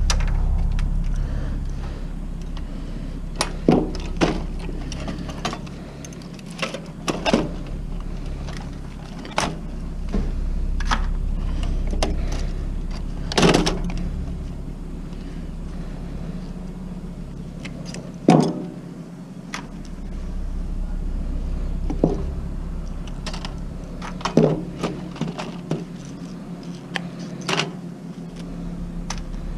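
Aviation snips cutting through wires: sharp snips at irregular intervals, a second to a few seconds apart, over a steady low hum.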